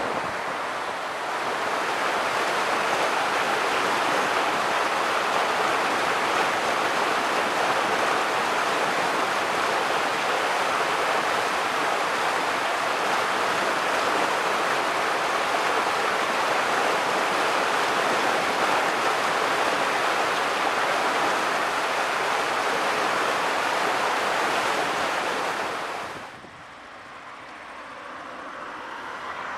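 Rushing water of a river swollen by typhoon floodwater: a loud, steady roar. It cuts off suddenly near the end, giving way to a quieter sound that swells.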